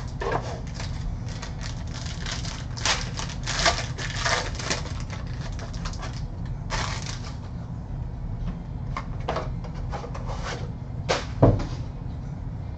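Crinkling, rustling and clicking as a sealed box of football trading cards is opened and the cards inside are handled, over a steady low hum. A knock near the end is the loudest sound.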